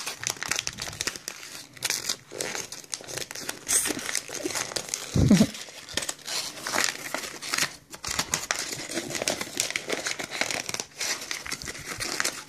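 A paper journal page being crumpled by hand while still bound in the book: dense, continuous crinkling and crackling of paper. A brief, louder low sound stands out about five seconds in.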